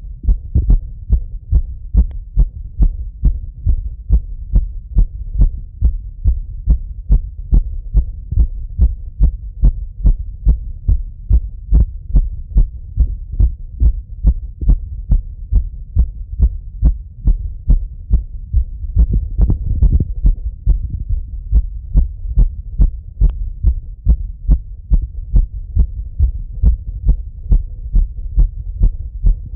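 A man's heartbeat heard through a Littmann stethoscope: a quick, even train of low thumps, the heart beating fast after running. A short rise in background noise comes about two-thirds of the way through.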